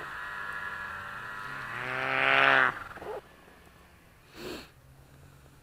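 Snowmobile engine revving: a steady high whine that climbs and gets louder over the first two and a half seconds, then drops off abruptly as the throttle is let go. A low steady engine hum goes on underneath.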